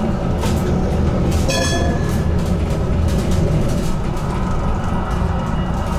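HTM GTL8 articulated tram running along its track, heard from inside: a steady low rumble with faint clicks from the wheels, and a brief high-pitched whine about a second and a half in.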